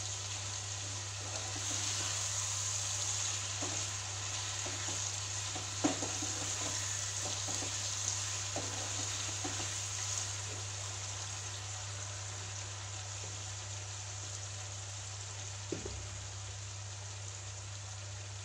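Chicken pieces frying in oil with spice paste in a nonstick pan, sizzling steadily as they are sautéed (bhuna). A wooden spatula scrapes and knocks against the pan a few times in the first half while stirring, and a steady low hum runs underneath.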